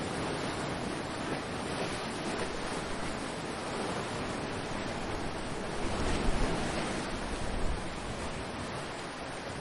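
Ocean surf washing steadily, with a louder, low rumbling swell about six to eight seconds in.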